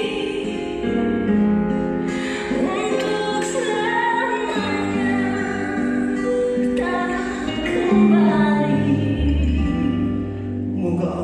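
Slow song playing: singing over long held orchestral chords.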